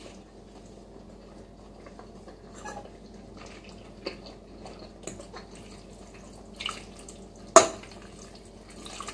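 Eating sounds: a spoon and fork stirring noodles in a ceramic bowl, with wet chewing and slurping. One short, sharp click stands out near the end.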